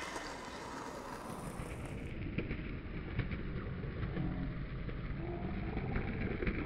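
Steady outdoor background noise: a low, even hum of distant traffic, with no single clear event.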